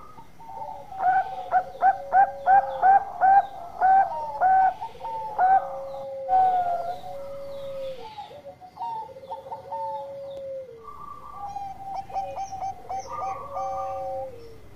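Caged zebra dove (Bangkok perkutut) cooing: a quick run of about ten short, clipped notes, then long rolling trilled coos. A second phrase of short notes and a trill starts a couple of seconds before the end. Faint high chirping sounds behind it.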